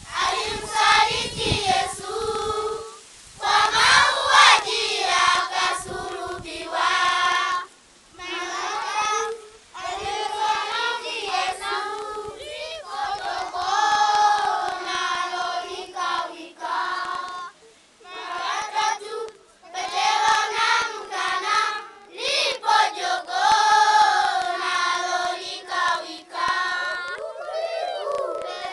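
A group of children singing a welcome song together in Swahili, unaccompanied, in phrases broken by short pauses for breath.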